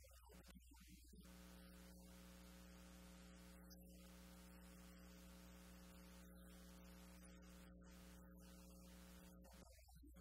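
Near silence with a faint, steady electrical mains hum that comes in about a second in and drops away near the end.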